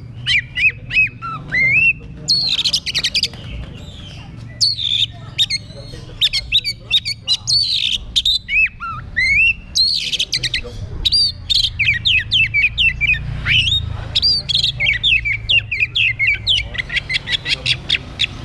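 Oriental magpie-robin singing a long, varied song of loud whistled notes and rising and falling slurs, ending with a fast run of repeated sharp notes near the end.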